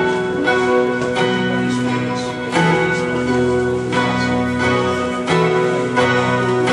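Solo guitar playing an instrumental piece: plucked notes struck about once a second, ringing over a steady low note.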